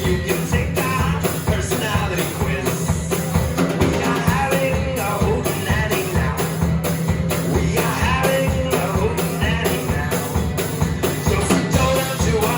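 Acoustic guitar strumming with a drum kit keeping a steady beat, playing live.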